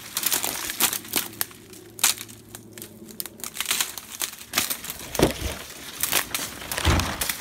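Dry grass and reed stalks crackling, snapping and rustling as someone pushes through dense brush on foot, in quick irregular crunches. Two heavier low thumps come about five seconds in and near the end.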